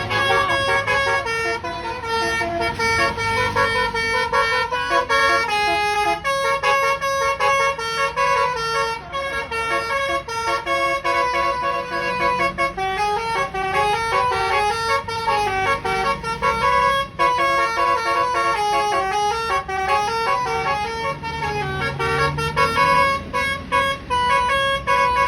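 Bus's Basuri telolet horn playing a long melody of stepping notes, with wavering up-and-down phrases in the middle, over the low rumble of the bus engine.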